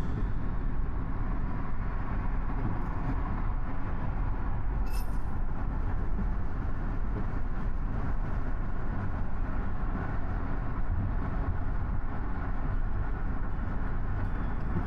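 Car driving on a city road: a steady low rumble of tyre and engine noise, with a brief click about five seconds in.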